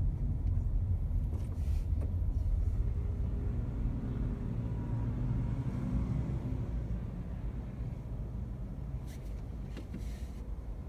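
Low, steady rumble of a car heard from inside its cabin while it crawls in city traffic, slowly fading as the car comes to a stop. A couple of light clicks come near the end.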